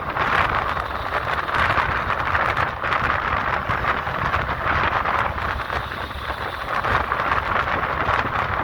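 Steady road noise of a vehicle travelling along a highway, with wind rushing over the microphone.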